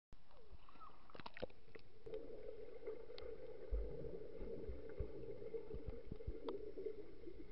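Muffled underwater sound picked up by a camera submerged in a swimming pool: water movement and bubbling, with a few sharp clicks about a second in and several soft low thumps around the middle.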